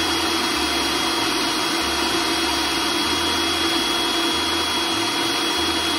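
Food processor motor running steadily with a thin high whine, mixing thick tamale masa of almond flour, chile pisado and egg whites.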